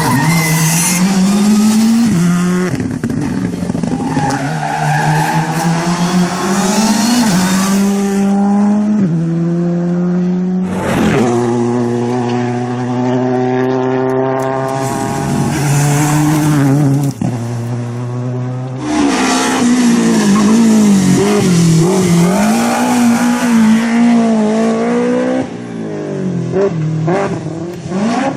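Rally car engines revving hard through repeated gear changes, their pitch climbing and dropping, with tyre squeal.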